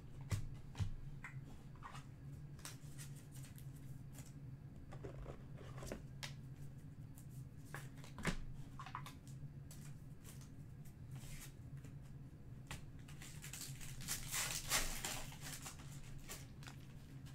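Trading cards handled and flipped through by hand, making light clicks and slides of card on card. About 13 s in, a card pack's wrapper is torn open and crinkled for a couple of seconds.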